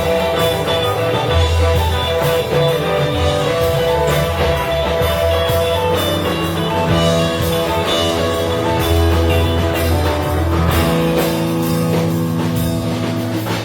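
Live rock band playing an instrumental passage with no vocals: electric guitar lines over bass and a drum kit, in a jam-band blues style.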